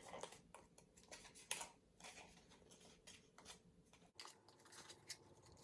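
Faint scattered clicks and rustles of paper and craft scissors being handled.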